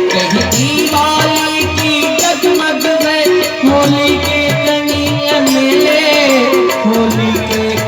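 Instrumental interlude of a Hindi song: a melody with sliding, bending notes over a steady tabla rhythm.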